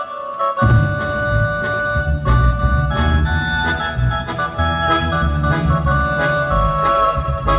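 Live band playing the instrumental intro of a song: held electric keyboard chords, joined about half a second in by bass and drums, with drum hits about twice a second.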